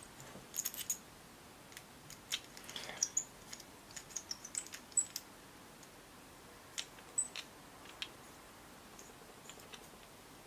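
Allen key turning small screws into a gun-mount clamp bracket: light, irregular clicks and ticks, busiest in the first five seconds and sparser after.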